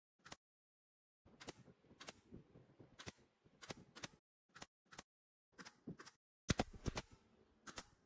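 Pneumatic brad nailer firing a quick, irregular series of sharp shots, about two a second, driving brads through the wooden edging frame into the tabletop. The loudest shots come in a close pair about six and a half seconds in.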